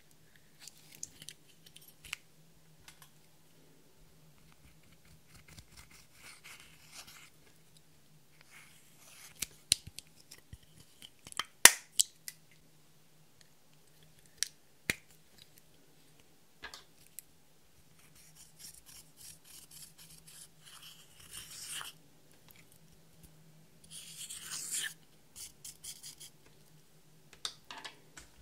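A plastic eyeshadow compact handled over a glass dish: scattered clicks and taps of the case, a few sharp snaps around ten to twelve seconds in, and stretches of scratchy rubbing later on.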